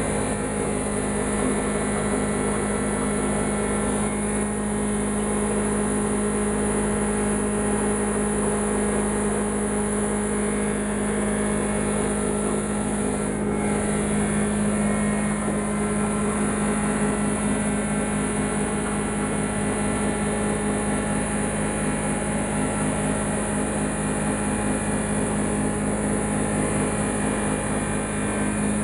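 Wood shredder machine running steadily with a constant loud mechanical hum, driven by its electric motor.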